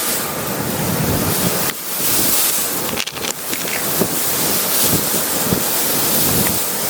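Strong gusting wind blowing across the microphone, a loud rushing noise that swells and drops with the gusts.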